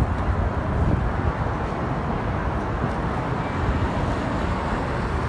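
Steady city street noise: traffic running past, a continuous low rumble with no distinct events.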